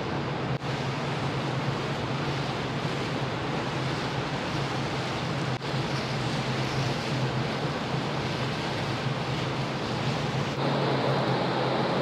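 Steady low hum of the ferry Hamayuu's engines under a rushing wash of wind and water noise. The noise dips briefly twice and steps up louder about ten and a half seconds in.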